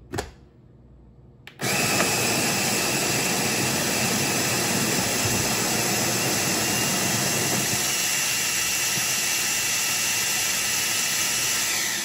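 OXO Brew conical burr coffee grinder running on its 10-second timer at its finest setting, grinding beans to a fine powder: after a click, a steady grinding whir with a faint whine starts about a second and a half in and winds down near the end as the timer shuts the motor off.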